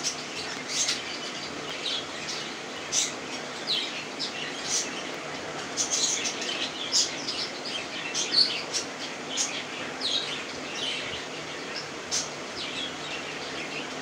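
Caged budgerigars chirping: a busy, irregular run of short high chirps and quick squeaky sweeps, sometimes several in a second.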